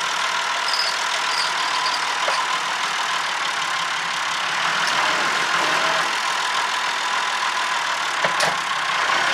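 Massey Ferguson 3085 tractor's diesel engine running steadily while it pulls a bush out by a chain. A couple of sharp clicks come near the end.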